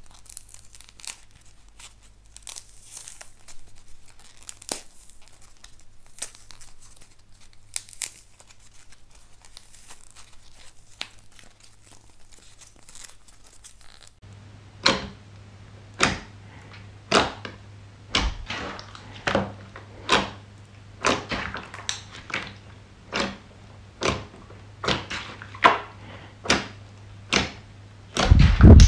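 Soft crackling and tearing as a crumbly coating is picked and pulled apart on a squishy toy. Then, about halfway through, it changes to sharp pops about once a second, coming a little faster later, as fingers press into a large clear slime; the loudest pop comes near the end.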